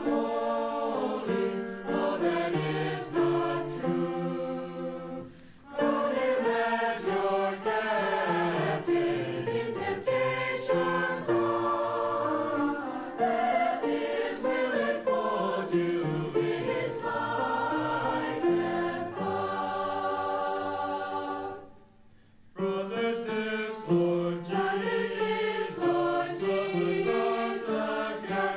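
High school concert choir singing a sacred choral anthem in several voice parts. There is a short break about five seconds in, and a pause of nearly a second about three-quarters of the way through before the singing resumes.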